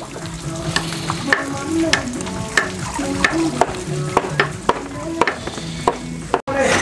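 Food sizzling as it fries in a pan while being stirred, with sharp clicks of the utensil, over background music with a melody.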